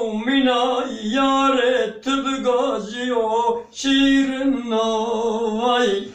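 A man singing unaccompanied: long, wavering, ornamented held notes in phrases, broken by short pauses for breath about two seconds in and again near four seconds.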